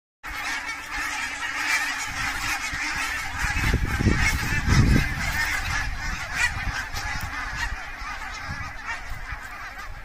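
A large flock of geese honking in flight, a dense chorus of overlapping calls. Wind buffets the microphone about four seconds in.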